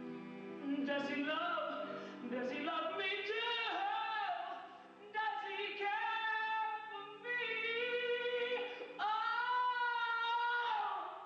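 A male stage singer belts high, held rock-opera notes with a wide vibrato in several phrases over instrumental accompaniment, screaming into the highest ones. The last and longest note begins about nine seconds in and falls away at the end.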